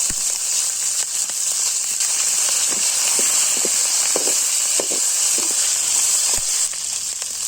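Hot oil sizzling steadily in a cooking pan with whole spices and green chillies just added to it, with a few small pops.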